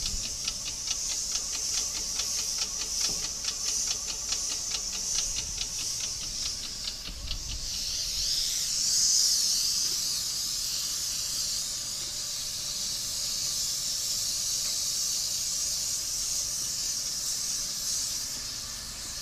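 Airless spray gun hissing as a HYVST SPT 650 airless sprayer sprays liquid waterproofing coating. For the first seven seconds or so a fast regular pulsing, about five a second, runs through the hiss, which then goes on steady.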